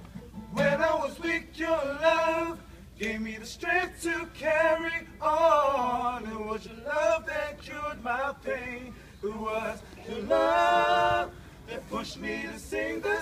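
Male vocal trio singing together in phrases, with a longer held note about ten seconds in.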